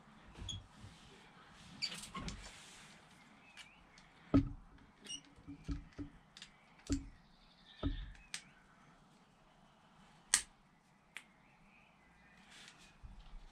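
Scattered clicks, taps and light knocks of hands working a blue silicone hose and a metal hose clamp onto a motorcycle pipe, with two sharper knocks, about four seconds in and again about ten seconds in.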